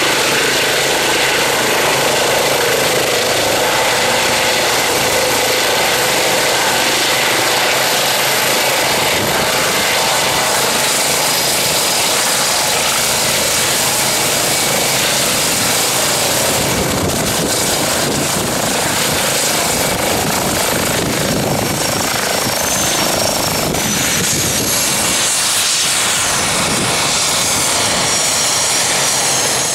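Eurocopter EC135 P1 twin-turbine helicopter (Pratt & Whitney engines) hovering and setting down onto its landing pad: a loud, steady roar of rotor and turbines with thin high whining tones over it, the low rotor sound becoming more uneven in the second half as it settles.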